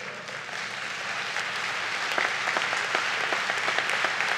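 Audience applauding, a dense patter of many hands clapping that swells over the first couple of seconds and then holds steady.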